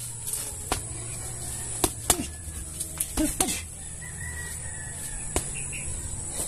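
Gloved punches landing on a homemade heavy bag wrapped in black plastic: a run of sharp, irregular hits in the first three and a half seconds, then one more a little after five seconds in. A rooster crows in the background.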